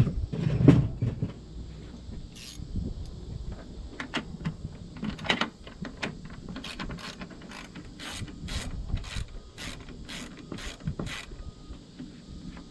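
Hand ratchet wrench clicking on the fan shroud bolts, a run of sharp clicks about two a second through the second half. A few loud knocks and clunks of metal and plastic come near the start.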